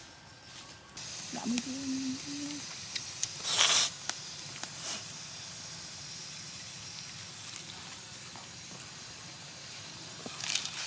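Eel soup in a bamboo tube steaming and sizzling over hot embers: a steady hiss that starts about a second in. A short, much louder burst of hiss comes about three and a half seconds in.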